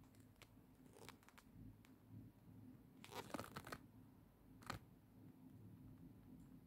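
Near silence over a faint low hum, broken by faint rustles and crinkles of a hand handling a canvas-and-rubber sneaker: a few light clicks about a second in, a short crackly cluster about three seconds in and one sharp crackle near five seconds.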